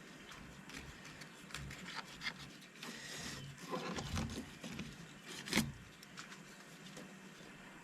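Filleting knife working through a hapuku on a cutting board: soft wet slicing and scraping with small clicks, and one sharper knock about five and a half seconds in.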